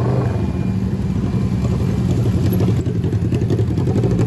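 Motorcycle engines running at low speed as sportbikes ride in, the engine note rising briefly near the start.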